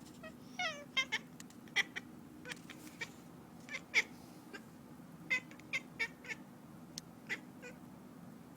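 A domestic cat making a string of about a dozen short, high calls, irregularly spaced, the first one wavering in pitch.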